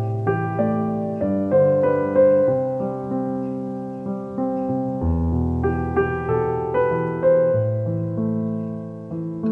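Background piano music: a slow melody over low chords, each note struck and fading away.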